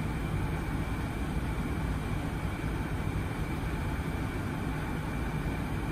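Lennox ultra-low-NOx gas furnace running steadily with its burners firing: a constant low-pitched running noise with a faint steady high tone above it.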